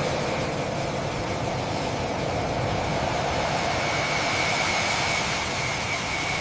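Jet engine running steadily: a loud, even rushing roar with a faint high whine that grows a little stronger about four seconds in.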